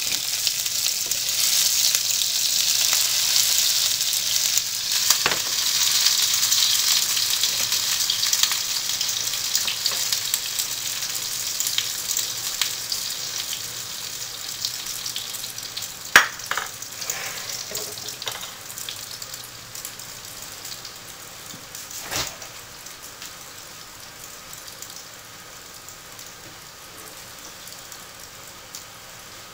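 Food sizzling as it fries in oil in a small nonstick frying pan, stirred with a metal spatula; the sizzle is strongest at first and dies away gradually. A few sharp clicks, the loudest just past halfway and another about three quarters of the way through.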